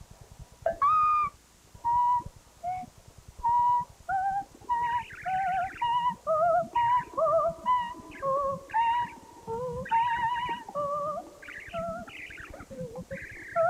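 Electronic cartoon-score music: a melody of short, separate pitched notes that hop up and down, some with small slides in pitch, over a faint low pulse.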